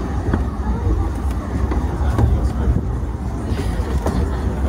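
Narrow-gauge train running along the track, heard from on board: a steady low rumble with scattered clicks and knocks from the running gear.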